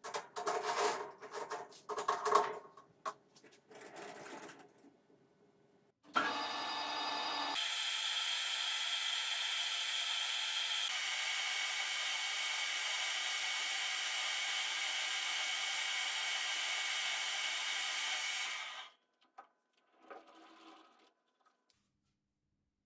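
Metal lathe: a few seconds of clattering as levers are set, then the machine starts about six seconds in and runs steadily with a gear whine while a drill in a toolpost-mounted chuck, fed by the carriage, bores into the end of a spinning hex bar. The sound changes a little partway through, stops suddenly, and is followed by a few light clunks.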